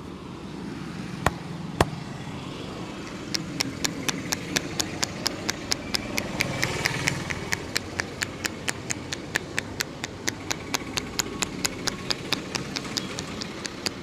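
Sharp hand slaps of a percussive massage: two single slaps, then from about three seconds in a steady run of about four slaps a second.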